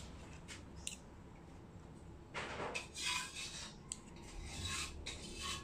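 Metal fork tines pressing and scraping along the edges of a folded slice of bread on a ceramic plate, crimping a tuna pie shut. A few light clicks, then a run of scratchy strokes from about two seconds in.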